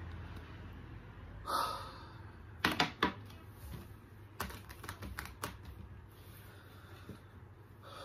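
A short breath, then a run of light clicks and taps in two clusters, about three and then five, from something small being handled.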